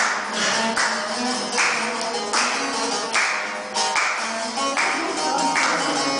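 A bağlama (long-necked Turkish lute) playing a folk tune, strummed with a strong stroke about every 0.8 seconds over ringing plucked notes.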